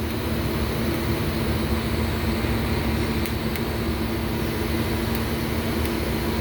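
Welding a cobalt-based hardface rod onto an MGB camshaft lobe: a steady crackling hiss over a low electrical hum, held without a break.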